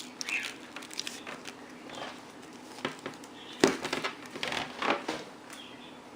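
Plastic parts of a canister vacuum's hose connector being handled and forced together: a run of small clicks and scrapes, busiest from about three and a half to five seconds in.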